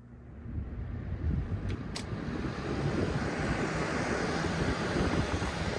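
Comfort Zone 20-inch box fan switched to high, its rush of moving air building up over the first few seconds as the blade spins up, then running steadily. A couple of faint clicks come about two seconds in. The owner says the blade is a little out of balance.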